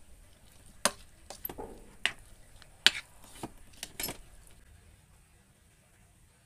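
Plastic rice paddle knocking and scraping against a rice cooker's inner pot while stirring cooked rice: a string of sharp clicks, about seven of them, stopping about four and a half seconds in.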